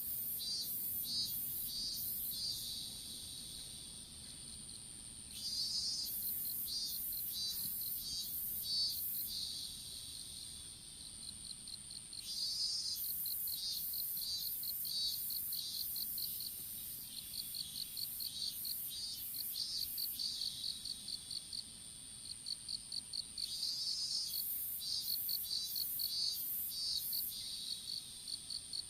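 Insects singing in a field: one keeps up a continuous high-pitched trill, while others call in trains of short, rapid high chirps that come in bouts a few seconds long and pause between them.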